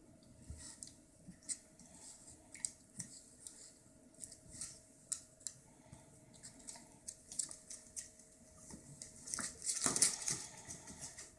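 Toy poodle and cat play-fighting: scuffling with irregular light clicks and taps, and a louder burst of rustling about ten seconds in.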